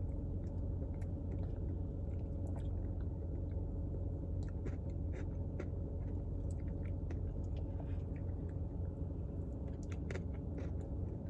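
Faint chewing and small clicks of someone eating a soft-serve Blizzard with Oreo cookie pieces, over a steady low hum.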